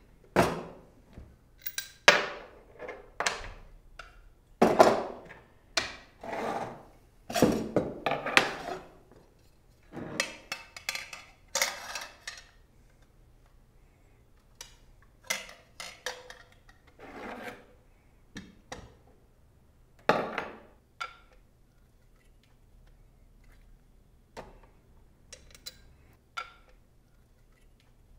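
Metal bicycle crankset and chainring parts being handled and fitted on a workbench: irregular clinks, knocks and scrapes, busier in the first half and sparser later.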